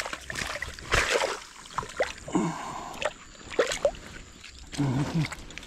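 Shallow lake water splashing and sloshing in irregular bursts as a mesh keepnet is lifted out of the water and dipped back in by hand.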